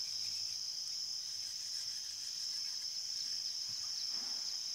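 Steady high-pitched insect chorus, an even unbroken trill, with a few faint short chirps over it in the second half.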